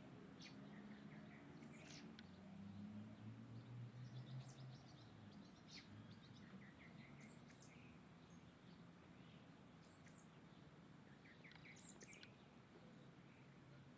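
Small birds chirping faintly: scattered short, high calls and brief trills, over a low background hum.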